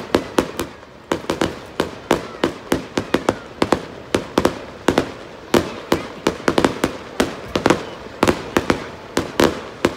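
Fireworks display: aerial shells bursting in quick, irregular succession, sharp bangs about three a second, each trailing off briefly.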